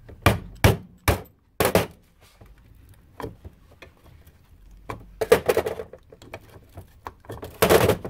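Screwdriver prying and knocking at the bent-over edge of a small painted metal charger case, with four sharp metal knocks in the first two seconds. A cluster of knocks and scrapes follows about five seconds in, and a louder knock of the case being handled comes near the end.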